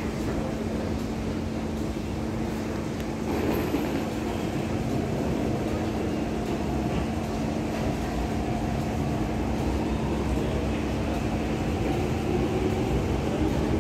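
MTR Tuen Ma Line C-Train electric train running at an underground platform behind closed platform screen doors: a steady rumble with a constant hum. About three seconds in the sound brightens, and in the second half a motor whine climbs slowly in pitch as the train gathers speed.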